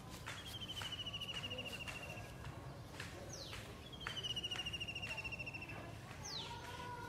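Kingfisher calling: a sharp falling note, then a long rapid trill that slowly drops in pitch. The call comes twice, and a third falling note starts near the end.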